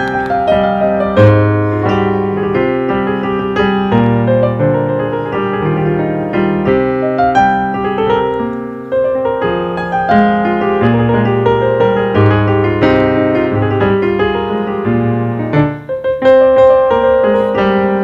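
Background piano music: a continuous flow of piano notes over lower bass notes.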